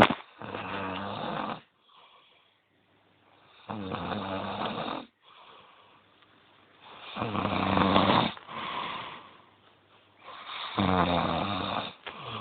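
A sleeping person snoring loudly: four long snores about three seconds apart, with quieter breathing between them. A sharp click comes right at the start.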